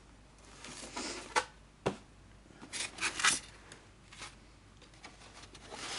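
Packaging being handled as items are taken out of a box: a few short rustles and scrapes, with a sharp click about two seconds in.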